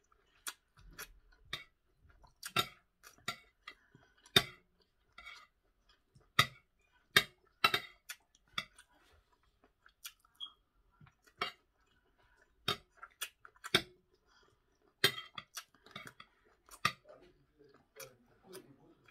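Eating sounds: chewing and sharp mouth clicks, with a fork clinking and scraping on a plate. Short, irregular clicks come a few per second at most.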